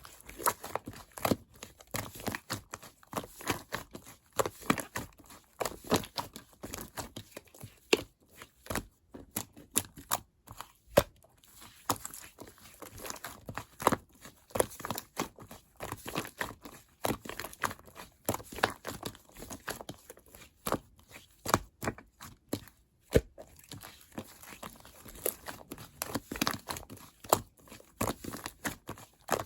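Purple clear slime and white fluffy slime being kneaded and squished together by hand, with dense, irregular sticky pops and crackling clicks.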